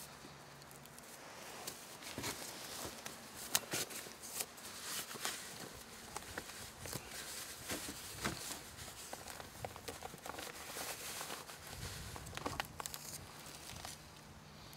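Grouse feathers rustling and skin tearing as the bird is pulled apart by hand, with irregular small crackles and clicks.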